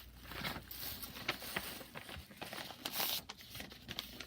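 Light rustling with scattered small clicks and taps as a storage bin is handled and closed up.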